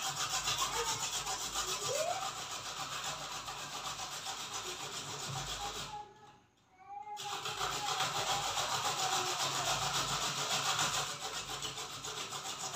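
Radish being grated on a metal box grater: a rhythmic rasping scrape of quick, even strokes, which breaks off for about a second in the middle and then resumes.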